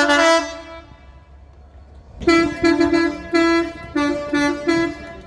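Train air horn sounding several tones at once: one short blast, then after a pause a quick string of about eight short toots.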